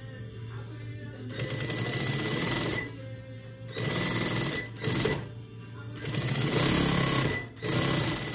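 Sewing machine stitching a curved neckline seam in several short runs, starting and stopping about five times.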